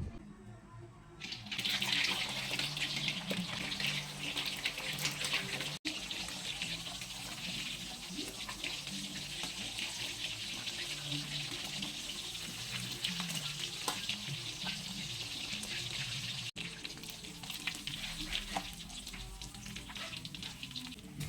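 Pieces of sun-dried Spanish mackerel frying in hot oil, a steady sizzle with many small crackles that starts about a second in and drops off for a moment twice. Background music plays underneath.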